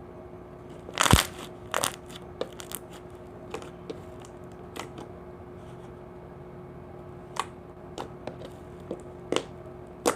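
Clicky slime being squeezed and stretched by hand, giving irregular sharp clicks and pops from trapped air, loudest in a cluster about a second in, over a faint steady hum.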